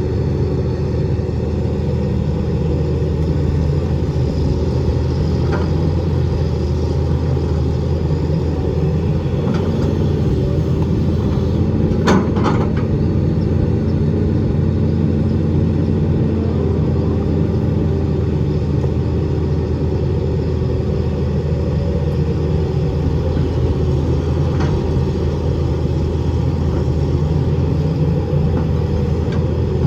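Hitachi EX200 excavator's diesel engine running steadily under work, with a single sharp knock about twelve seconds in and a few fainter ticks.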